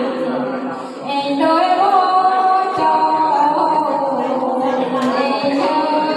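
A woman singing a Mường folk song unaccompanied, in long held notes that bend slowly in pitch.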